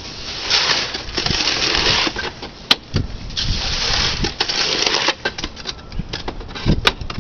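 A shovel scrapes and pushes wet concrete down a homemade wooden chute in several strokes, with a sharp knock a little under three seconds in.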